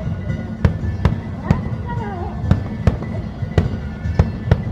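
Aerial fireworks bursting in rapid succession, sharp bangs about two to three a second over a steady low rumble of further explosions.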